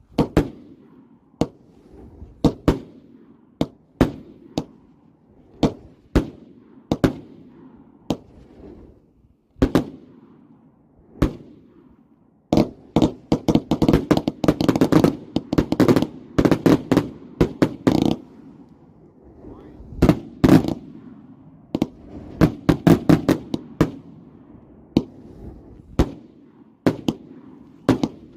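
Intravenous Fireworks 'Paralysis' 150-shot firework cake firing: sharp bangs come about one a second at first. Then a rapid barrage of many shots in quick succession fills the middle, followed by spaced bangs and another quick cluster.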